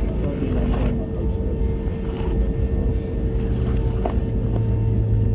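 Airbus A320neo cabin noise while taxiing: the CFM LEAP-1A engines at idle give a steady low rumble, with a constant hum over it. A deeper hum grows stronger about four seconds in.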